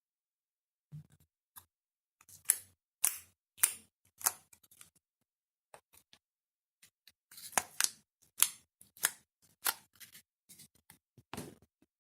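Clear slime with fruit beads being squeezed and poked by hand, giving a series of sharp, sticky pops and clicks. The pops come in two loud runs after a quiet first second.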